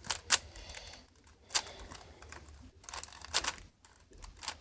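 Plastic Rubik's cube being turned by hand: a few irregular clicks and clacks as the layers are twisted, with short gaps between turns.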